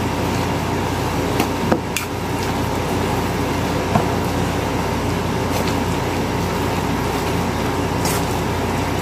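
A fork stirring grated cassava, eggs and flour in a stainless steel bowl, with a few sharp clicks of the fork against the bowl, over a steady machine hum.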